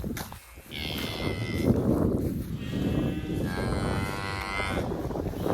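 Cattle mooing: a short high call about a second in, then a longer drawn-out call of about two and a half seconds, from a cow with her newborn calf.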